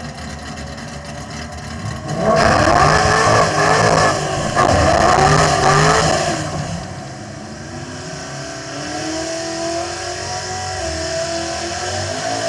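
Holden VE SSV ute's V8 doing a burnout. The engine runs steadily, then about two seconds in it is revved hard for some four seconds, its pitch rising and falling repeatedly over the hiss of the spinning rear tyre. It then drops back to low revs as the ute rolls forward.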